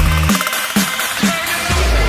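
Electronic dance music with a kick drum beating about twice a second; the bass line drops out shortly after the start, leaving the beat and high synth sounds.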